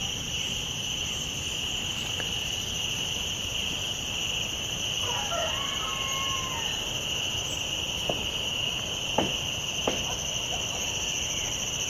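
Rainforest insects and small frogs calling together in a steady chorus, a continuous high-pitched trill. A short wavering call rises and falls about halfway through, and three sharp clicks come in the last few seconds.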